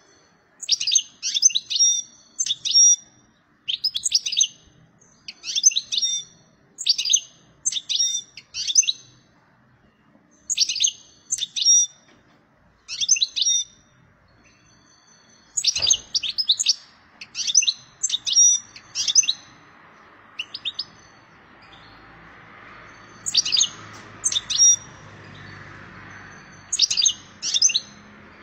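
European goldfinch singing in short, rapid twittering phrases, about one a second with brief pauses between: the song of a bird in breeding condition. A single sharp knock about halfway through, and a faint low background noise in the second half.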